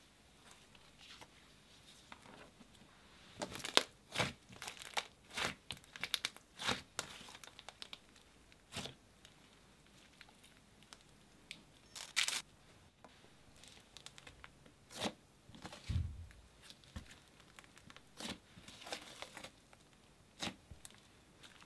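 Thick chocolate-brown butter slime being pressed and squeezed by hand, giving short, sharp crackles at irregular intervals, in clusters, with one dull low thump about two-thirds of the way through.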